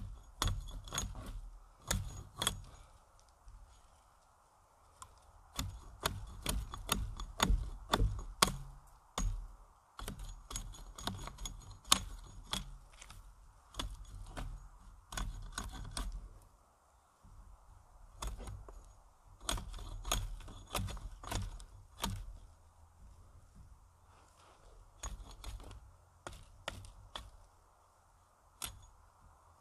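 Side twigs being trimmed and snapped off a thin branch with a small hand blade: irregular snapping and cracking clicks with rustling twigs and handling knocks, thinning out in the last few seconds.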